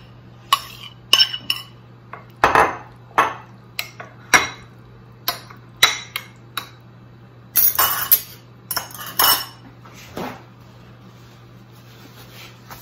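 A metal spoon clinking and scraping against a glass bowl and ceramic baking dishes as meat sauce is spooned out, a dozen or so sharp, irregular clinks that stop about ten seconds in.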